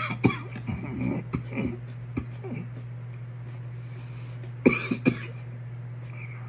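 A man coughing and clearing his throat as he eats super-hot chocolate primotalli peppers. A cluster of short coughs and mouth sounds comes in the first two seconds, then two sharper coughs about five seconds in, over a steady low hum.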